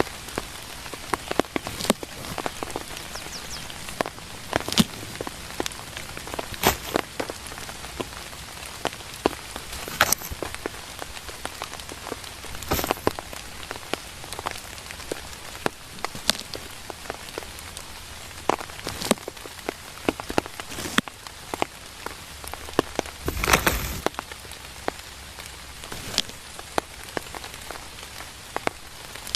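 Steady rain, with individual drops tapping sharply and irregularly close by. About two-thirds of the way through comes one louder, brief noise.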